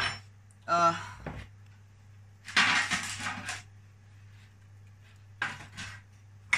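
Kitchen handling noises: a steel mixing bowl taken off a wooden chopping board and a metal baking tray of paper cupcake cases set down on it, a few short knocks and a louder noise about a second long midway, over a low steady hum.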